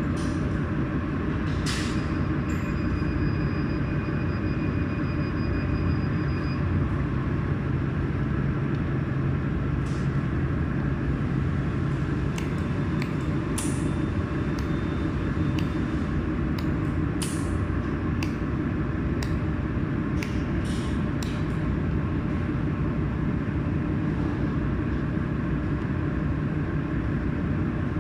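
Mold-repair laser welding machine running with a steady hum, with sharp ticks at irregular intervals from its laser pulses striking the ring as it is welded.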